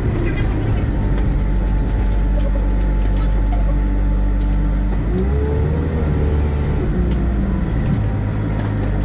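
Bus engine running with a steady low drone. About five seconds in, the engine note rises and then falls back again, as the bus accelerates.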